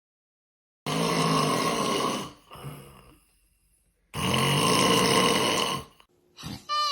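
A person snoring strangely: two long, harsh snores of about a second and a half each, two seconds apart, with a shorter, softer one between them.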